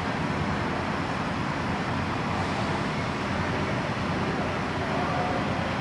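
Steady, unchanging rumble and hiss of engines running, with no distinct events.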